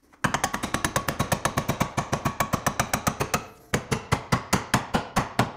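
A fast, even train of metal hammer blows, about ten a second, driving a pickle fork to split the lower ball joint of a classic Mustang's lower control arm from the spindle. The blows stop briefly about three and a half seconds in, then resume a little slower.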